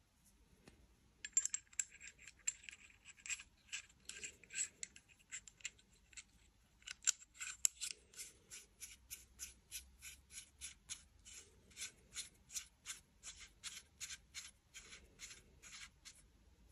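Pistol compensator being screwed by hand onto a threaded 9 mm barrel. It gives small metallic clicks, a quick run at first, then a steady two to three clicks a second as it turns on the threads.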